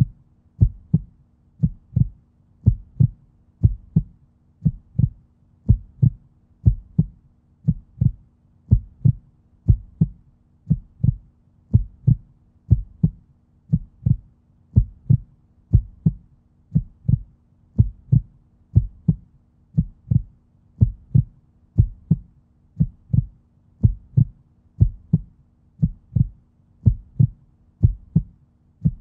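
Background soundtrack of low, heartbeat-like thuds repeating in an even rhythm over a faint steady hum.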